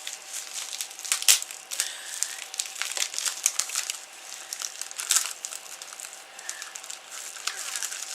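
Bubble-wrap packaging crinkling and crackling in irregular bursts as it is unwrapped by hand.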